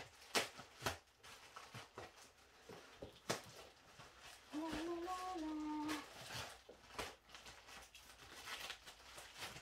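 Shoe packaging being opened and handled: scattered rustles, crinkles and small knocks. Halfway through there is a pitched tone, held for over a second.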